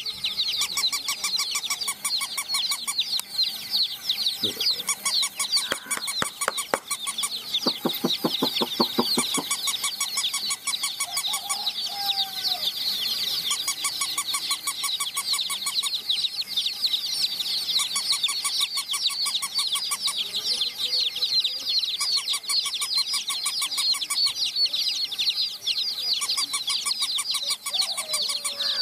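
A crowd of baby chicks peeping continuously, many short high cheeps overlapping. A quick run of rapid ticks sounds about six to nine seconds in.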